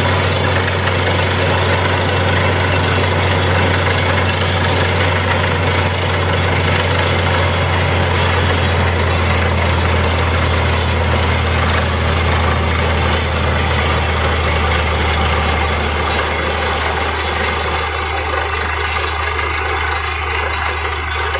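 Borewell drilling rig running steadily under load: a constant low engine drone with a continuous rushing hiss as muddy water and cuttings spray out of the bore around the drill pipe. The sound eases slightly near the end.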